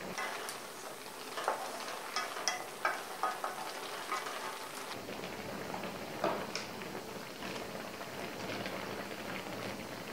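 Chicken in coconut milk boiling in a wok: a steady bubbling hiss with a scatter of sharp pops and plops, a cluster of them in the first few seconds and a couple more about six seconds in.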